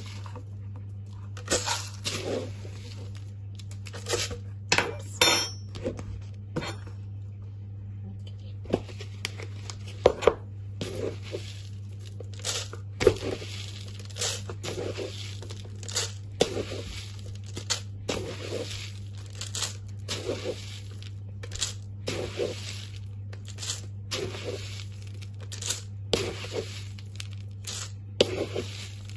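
Mealworms being put into a plastic-bottle bird feeder through its cut lid: repeated irregular rustles, crinkles and light clicks of plastic being handled, about one or two a second, over a steady low hum.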